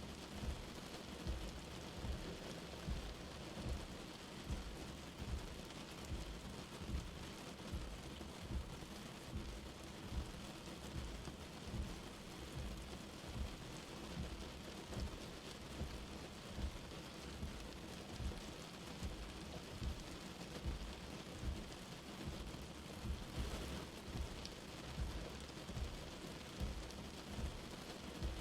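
Light rain falling steadily: an even, soft hiss, with dull low thuds recurring about once a second underneath.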